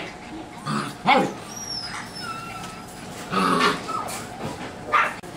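Poodle puppies yipping and barking in play: several short yips, the loudest about a second in, with thin high whines between them.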